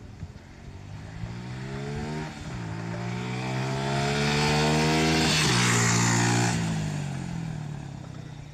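Suzuki Gixxer 155's single-cylinder engine on its stock exhaust, accelerating past in a flyby. The pitch climbs, breaks briefly about two seconds in, and climbs again as the bike gets louder. It drops sharply as the bike passes, then fades away.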